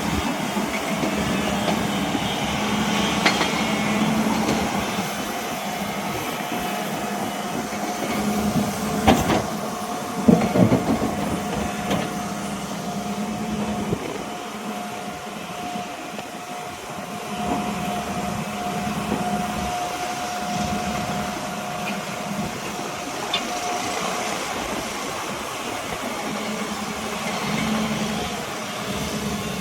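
Excavator's diesel engine running with a steady hum and a held whine, with a couple of sharp metal clanks about nine and ten seconds in.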